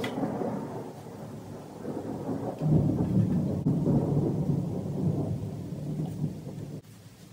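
Low rumbling and rustling handling noise as hands tug at a wiring harness plug on a Jeep 4.0 engine's intake manifold, with no clear clicks; it swells about a third of the way in and cuts off abruptly near the end.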